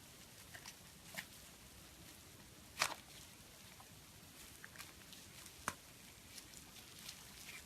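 Slime being handled, with scattered small clicks and pops: about ten in all, the two loudest near three seconds in and just before six seconds.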